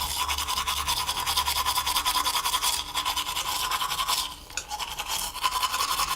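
Toothbrush scrubbing teeth: rapid back-and-forth brushing strokes, with a short break about four seconds in.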